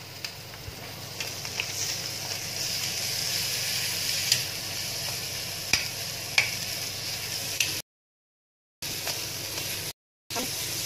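Boiled potato filling sizzling in ghee in a steel kadhai while a steel spatula stirs it, clicking and scraping against the pan now and then. The sizzle grows louder about two seconds in, and the sound cuts out completely twice near the end.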